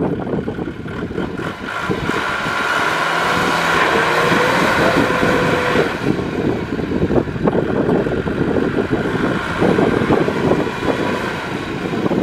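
Kubota M6040SU tractor's diesel engine running hard under load while the tractor is stuck in deep mud with a loaded trailer behind it. The engine sound is loud and rough, with a busier, louder stretch in the middle.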